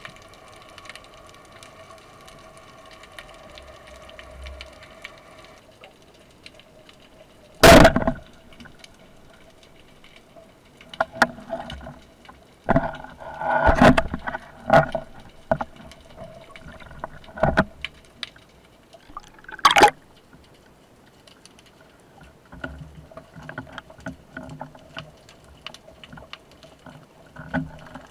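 Underwater recording from a speargun-mounted camera: a steady hum, with several sharp knocks and clicks from the speargun and its gear spread through the middle. The loudest knocks come about a quarter, half and two-thirds of the way in, with softer clicking near the end.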